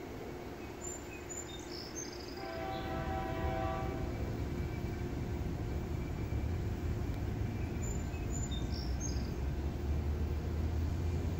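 ALCO RS-1 diesel-electric locomotive hauling a short freight train, its low engine rumble growing louder as it pulls. Its horn sounds once, for about a second and a half, some two seconds in.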